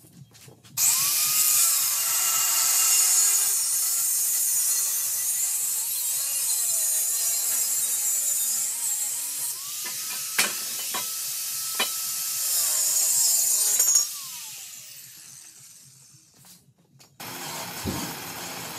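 Handheld angle grinder cutting into the steel tube of an old metal bed headboard frame, starting about a second in with a hissing, high-pitched cut whose motor pitch dips and recovers under load. A few sharp clicks come near the end of the cut, then the motor winds down with a falling whine.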